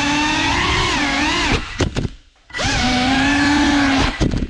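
GEPRC Cinelog 35 cinewhoop FPV drone's motors and ducted props whining, the pitch wavering with throttle. About a second and a half in the whine chops out with a few sharp blips, then spools back up and cuts out again near the end.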